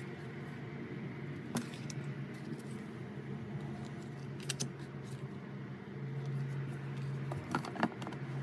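A few light clicks and rattles, about a second and a half in, around the middle and twice near the end, over a steady low hum.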